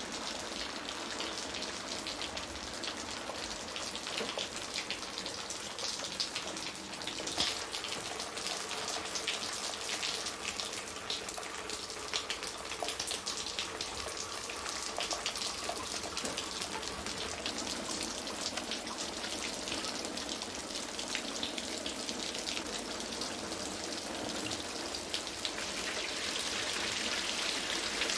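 Steady rain with water dripping: an even hiss of many small drop ticks that grows a little louder near the end.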